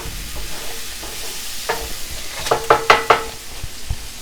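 Butter, onions and garlic sizzling in a cast iron skillet while being stirred. About two and a half seconds in, a utensil knocks against the pan several times in quick succession, with a short ringing clink.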